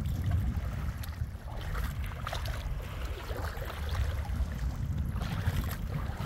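Wind buffeting the microphone, a steady low rumble, with the faint lapping of small waves at the water's edge.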